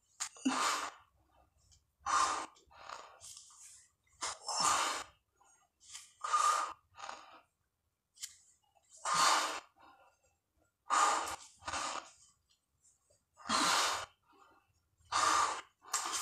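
A man breathing hard through the mouth from the exertion of push-ups: about a dozen forceful, rasping breaths, some coming in quick pairs, with short pauses between.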